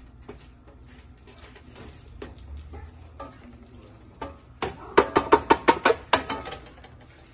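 Wooden spatula stirring kidney beans in sauce in a stainless steel skillet, with soft scrapes and clicks. About five seconds in comes a quick run of about a dozen sharp taps against the metal pan, with a slight ring.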